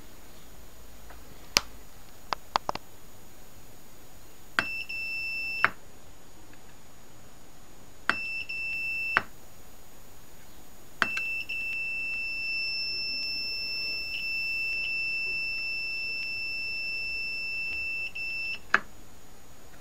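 Multimeter continuity tester beeping as its probes touch points on a circuit board: a few sharp clicks, then three high steady beeps about one second, one second and nearly eight seconds long, each starting and ending with a click of probe contact. The beep signals an electrical connection between the probed points.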